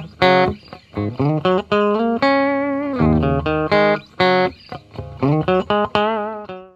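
Intro theme music built on quick plucked notes with a held chord midway, cutting off abruptly at the end.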